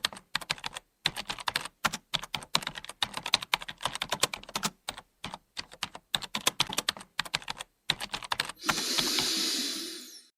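Computer keyboard typing in quick, irregular runs of keystrokes. About eight and a half seconds in the typing stops and a rushing hiss swells up, then fades away.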